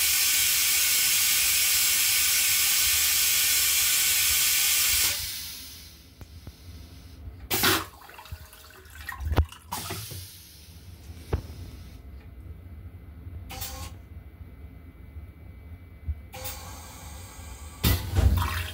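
An M7 railcar toilet flushing: a loud, steady hiss that cuts off suddenly about five seconds in. This is followed by a much quieter stretch with a few short knocks, and another short burst of hissing near the end.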